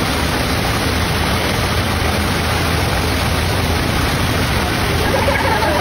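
Steady, even rushing noise like static, with nothing distinct standing out; a voice comes in faintly near the end.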